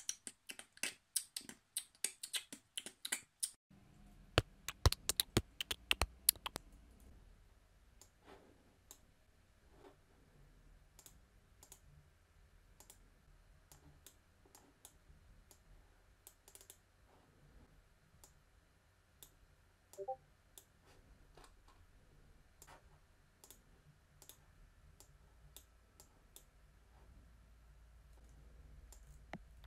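A fast run of loud clicks for the first few seconds, then scattered soft computer mouse and keyboard clicks over a low hum.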